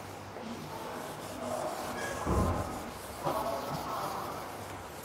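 Whiteboard eraser rubbing across a whiteboard in two stretches of wiping, with a dull thump near the middle.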